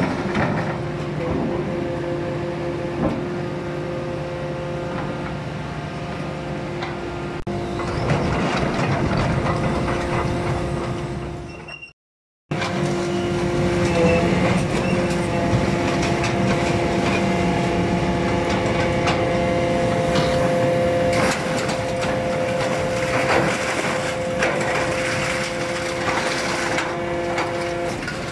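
Heavy scrap-yard machinery running steadily: the hydraulic power unit of a scrap-metal baling press hums with a steady whine. The sound drops out briefly about twelve seconds in. After that, the diesel engine of a Kobelco SK210 tracked excavator and clanks of scrap metal join the drone.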